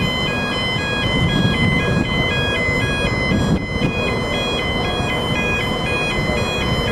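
Level crossing warning alarm sounding a steady, repeating two-note electronic warble over the low rumble of an Irish Rail 22000 class diesel railcar rolling through the crossing.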